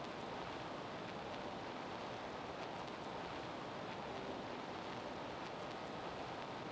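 Steady, even hiss with nothing standing out and no change in level: the background noise of a screen recording.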